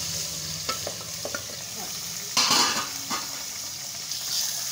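Raw chicken pieces frying in hot oil with browned onions, a steady sizzle dotted with sharp pops of spattering oil, with a louder burst of sizzling about two and a half seconds in. A spatula stirs the pieces through the oil.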